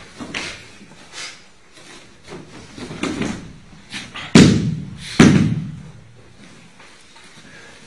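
Bodies and limbs slamming onto a padded floor mat during a throw and grappling. Two loud thuds land a little over halfway through, under a second apart, after lighter scuffs and thumps of feet and cloth.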